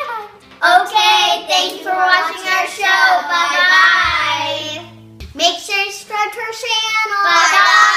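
Young girls singing together in two long sung phrases, with a short break a little past the middle.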